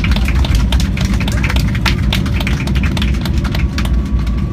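Cabin noise of a Boeing 737-800 rolling out on the runway after landing: a loud, steady deep rumble from the airframe and engines, with rapid irregular clicks and rattles from the cabin over it.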